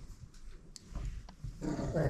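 Five-week-old pit bull puppy play-growling, starting about a second and a half in, after a few light taps and clicks.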